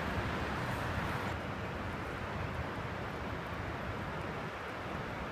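Wind buffeting the microphone: a steady, unsteady low rumble under a hiss that thins slightly about a second and a half in.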